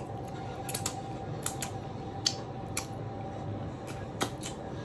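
Wet lip smacks and finger-sucking clicks from someone eating buffalo wings and licking sauce off her fingers, several irregular smacks over a faint steady hum.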